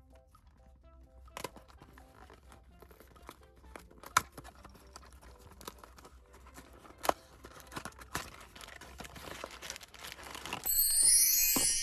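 A small cardboard toy box being handled and opened by hand: scattered scrapes and taps with two sharp clicks, then loud plastic crinkling near the end as the wrapped parts come out.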